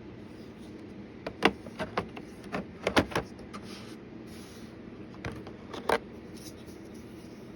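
About ten sharp clicks and knocks, mostly bunched in the first half with two more a little later, from a case of kitchen knives being handled, over a steady low hum.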